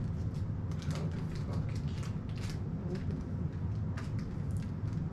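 Steady low room hum with scattered light clicks and rustles, of a kind made by someone handling and eating food.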